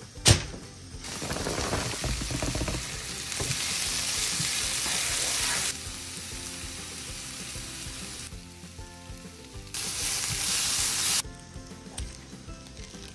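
Sliced onions and garlic sizzling as they fry in a pan, in two stretches: one of about four seconds starting a second in, and a shorter one near the end. A single sharp knock about a third of a second in, with faint music underneath.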